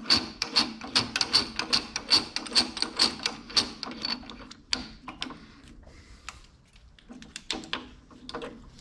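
Quick, sharp clicking from tool work at a drill press, about two to three clicks a second for roughly five seconds, then a few scattered clicks near the end.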